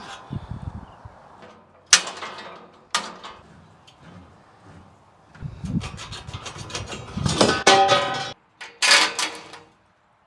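Metal knocks and scraping from rusty Ferris wheel parts being worked loose: two sharp clanks about two and three seconds in, then a longer stretch of rubbing and clatter and one more strike near the end.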